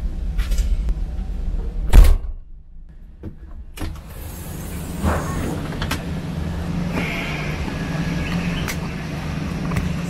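Toyota AE86 engine running, heard from inside the cabin, with a car door shut with a heavy thud about two seconds in. After a short break the engine runs on steadily.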